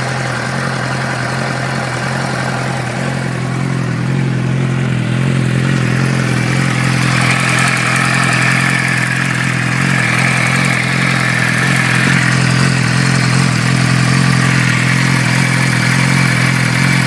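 2006 Suzuki GSX-R600's inline-four engine running steadily at an even speed, slowly growing a little louder. A ticking noise comes from the engine, and the owner does not know its cause.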